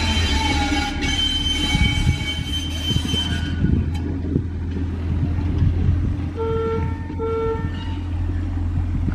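Train horn sounding, then cutting off about three and a half seconds in, over a steady low engine rumble from the train. Two short horn toots follow, about six and a half and seven seconds in.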